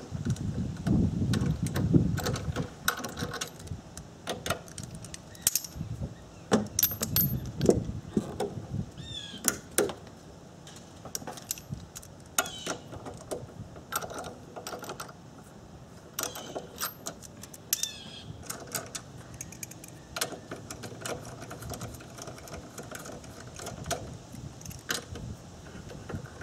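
Socket ratchet and extension clicking and metal tools clinking while the strut tower bar bolts are loosened, with irregular sharp clicks and taps throughout.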